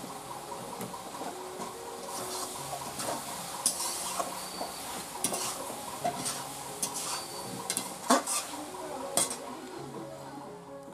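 A spatula scraping and clinking against a black kadai as chicken curry is stirred and fried, with light sizzling. The strokes come irregularly, with two louder clanks near the end.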